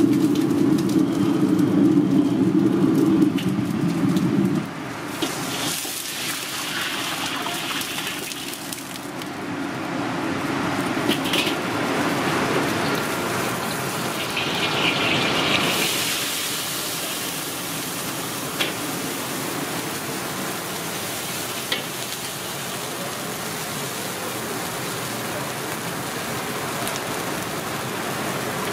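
Commercial gas wok burner running with a steady rushing noise under a wok, loud for the first four seconds or so and then lower. It is broken by a few short metal clinks of a ladle against the wok and sauce containers.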